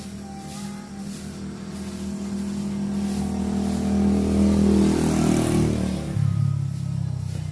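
A motor vehicle driving past. Its engine grows louder to a peak about four to five seconds in, then drops in pitch as it moves away.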